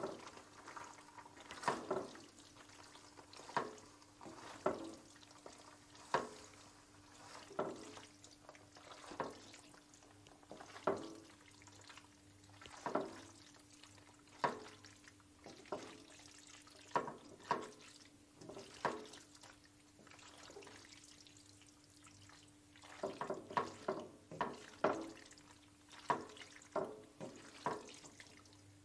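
Fettuccine in a thick cream sauce being tossed and stirred with a silicone spatula in a nonstick pan: wet squelches and slaps every second or so, quicker for a few seconds about three-quarters of the way through, over a steady low hum.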